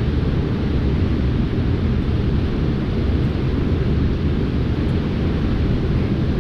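Steady rushing of a fast river, with wind rumbling on the microphone.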